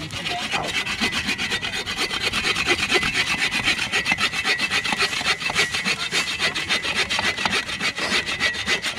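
Hand saw cutting through a dry, weathered dead branch with fast, steady back-and-forth strokes.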